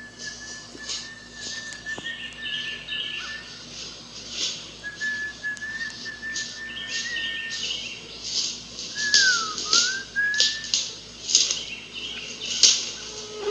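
Someone whistling long, nearly level high notes, two held for a few seconds each, then one that dips down and back up about nine seconds in. Irregular rustling and crackling runs beneath.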